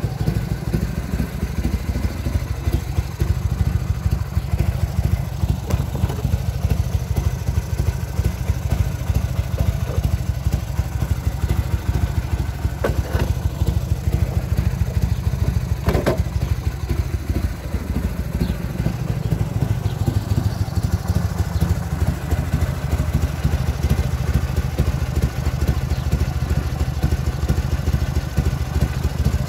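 Harley-Davidson Shovelhead V-twin engine of a 1979 FLH idling steadily, with a couple of short sharp clicks about halfway through.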